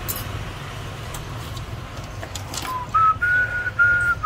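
A person whistling a tune: a few clear held notes, stepping up in pitch, starting about two and a half seconds in. Before that only a steady low hum and a few faint clicks are heard.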